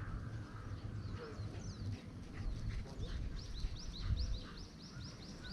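A wild bird calling: scattered high chirps, then about halfway through a fast run of short, high, quickly repeated notes, about five a second. A low outdoor rumble runs underneath.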